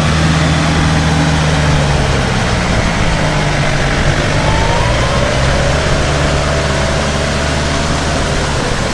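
Kubota combine harvester's diesel engine running steadily and loudly, with a dense machinery hiss over the low engine hum.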